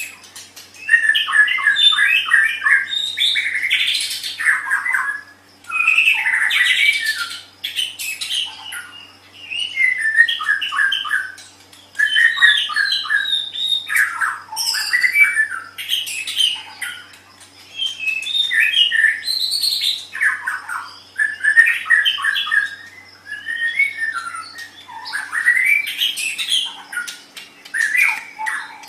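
White-rumped shama (murai batu) singing: varied song phrases a second or two long, separated by short pauses, many of them built from rapid runs of repeated notes.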